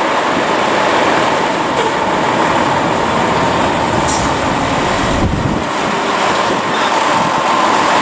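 Fire department ladder truck driving, its engine and road noise loud and steady.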